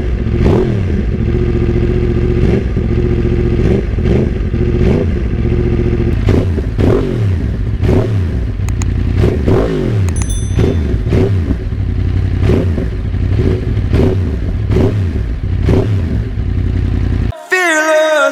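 Yamaha R1 crossplane inline-four engine running through a newly fitted link pipe in place of the stock mid-pipe, blipped over and over, the revs rising and falling about once a second. It cuts off suddenly near the end.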